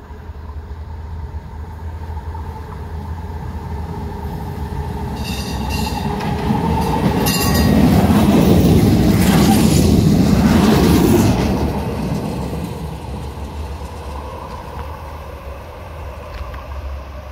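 A Croydon Tramlink tram passing close by on the tracks. It grows louder to a peak about eight to eleven seconds in, then fades away. Two short high-pitched sounds come shortly before the peak.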